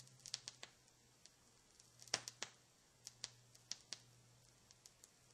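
Vinyl LP surface noise from a Sanyo P33 turntable's stylus in the blank groove between tracks. It is scattered clicks and pops over a faint, steady low hum.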